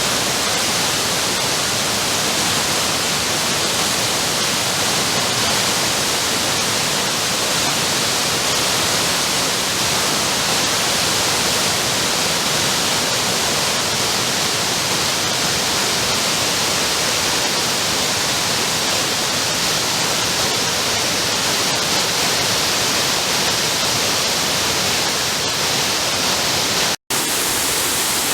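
Waterfall: the steady, loud rush of falling water, even throughout and brighter in its upper range. It drops out for an instant near the end.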